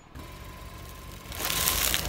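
Car engine running with a steady low rumble as the tyre creeps forward on asphalt, with a faint steady whine over it. About a second and a half in, a hiss and crackle swells as the tyre starts pressing on the object.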